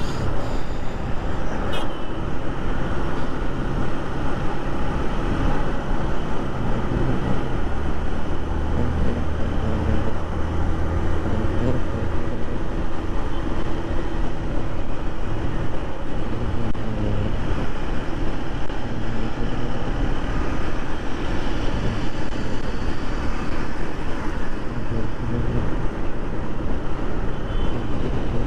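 Motorcycle engine running while the bike is ridden along an open road, its note shifting up and down now and then, over steady wind and road noise on the rider's microphone.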